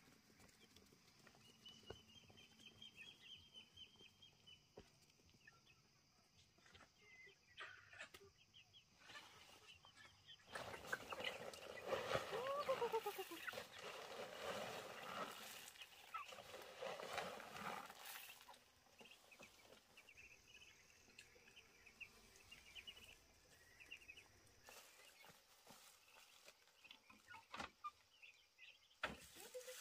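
Animal calls outdoors: several falling cries in a louder stretch through the middle, with faint high chirping early on and a few sharp clicks near the end.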